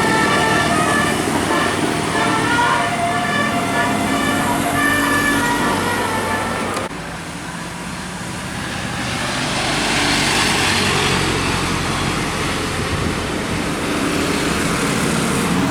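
Bus musical horn (telolet/basuri type) playing a tune of several tones sounding together and changing pitch every half second or so. About seven seconds in it cuts off abruptly, giving way to a bus going by: a rushing noise with a low engine hum that swells and fades.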